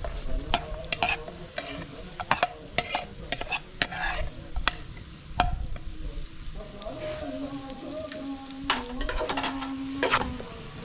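Metal slotted spoon scraping chopped vegetables off a ceramic plate into a pot, then stirring them, with repeated clinks and scrapes. The vegetables sizzle as they fry in the pot.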